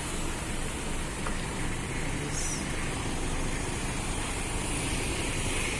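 2008 Honda CR-V engine idling steadily, heard from the rear of the car by the exhaust.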